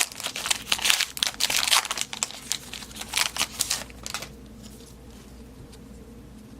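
Wrapper of a 2019 Bowman baseball card pack being torn open and crinkled, in quick irregular crackles that stop about four seconds in.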